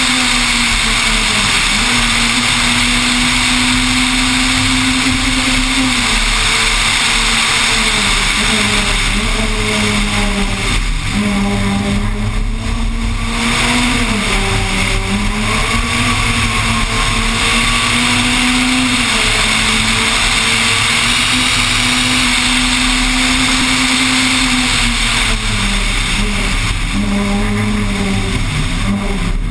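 Peugeot 206 rally car engine held at high revs, driven hard on a special stage. The engine pitch stays mostly level and dips briefly several times at gear changes and lifts, over steady wind and road noise.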